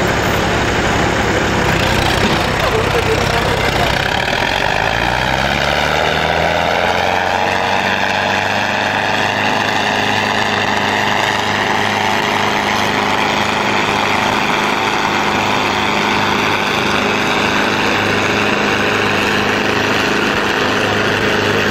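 Diesel farm tractor engines in a tractor tug-of-war, revving up about five seconds in and then held at high, steady revs as they pull against each other.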